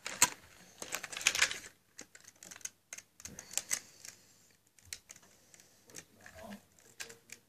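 Plastic Lego pieces clicking and rattling as a Lego train carriage is handled and pieces are pressed back into place: a dense clatter in the first second and a half, then scattered sharp clicks.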